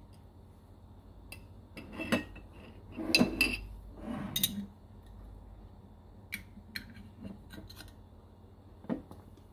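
Kitchen clatter: scattered clinks and knocks of utensils and food containers being handled on a countertop, the loudest cluster about three seconds in.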